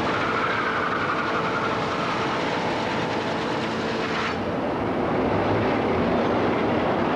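Steel mill machinery running: a loud, dense clatter with steady whining tones over it, which changes abruptly about four seconds in to a duller rumble without the whine.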